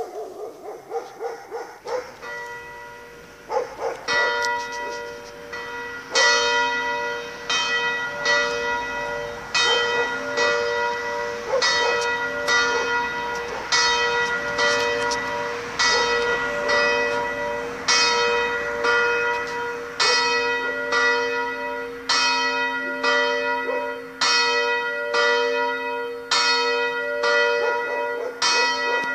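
Swinging church bells rung by electromagnetic pull-magnet ringers, starting up: the first clapper strikes come faint and uneven as the bells swing up, then ring out strongly at about one strike a second, their tones ringing on between strikes.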